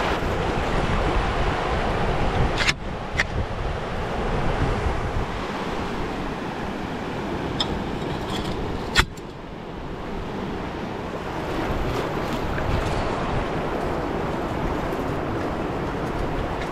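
Wind rushing on the microphone over shallow surf washing on a sandy beach, with a few sharp clicks, the loudest about nine seconds in.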